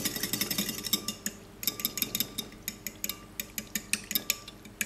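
Metal spoon clinking rapidly and irregularly against a ceramic bowl while stirring yeast into lukewarm milk to dissolve it, with a short pause about one and a half seconds in.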